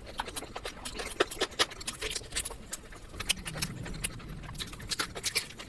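Close-up eating sounds: wet chewing with many quick, irregular mouth clicks.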